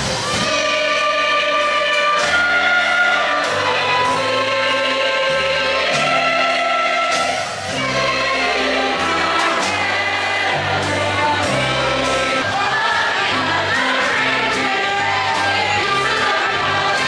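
Choir singing a Christmas song with instrumental backing: held sung notes over a stepping bass line and a steady beat.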